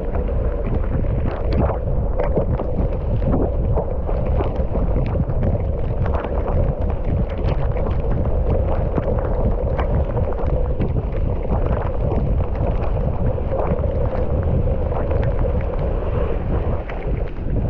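Mountain bike ridden down a dry dirt trail, heard through an action camera's microphone: steady wind rumble on the mic with tyre noise and frequent short rattles and knocks from the bike over rough ground.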